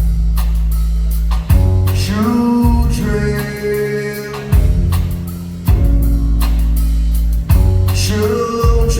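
Live band music: deep sustained bass notes changing every second or two over drums and cymbals, with a short sliding voice-like line twice.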